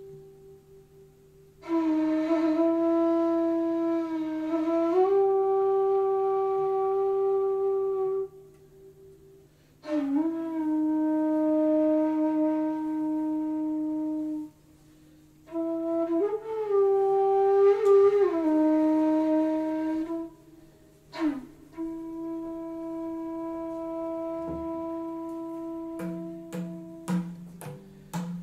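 Improvised music: a flute plays long held notes in phrases of a few seconds, sliding between pitches, with short pauses between phrases and a faint low hum beneath. Near the end a run of sharp percussive taps joins in.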